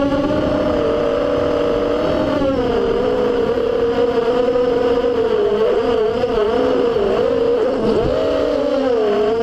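FPV quadcopter's brushless motors and propellers whining, heard from the onboard camera. The pitch holds steady for about two seconds, then repeatedly dips and rises as the throttle is worked.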